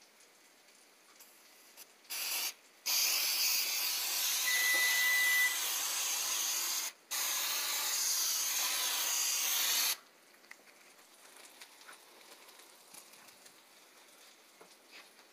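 Aerosol cooking spray hissing onto a metal baking sheet in three sprays: a short burst, then two long sprays of about four and three seconds with a brief break between them.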